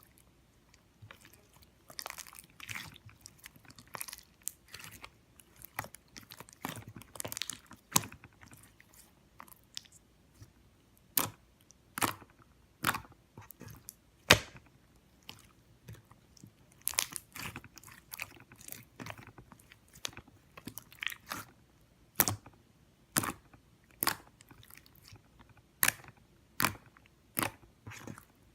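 Slime being squeezed and poked by hand: irregular sharp pops and clicks as air pockets burst, with stretches of denser crackling.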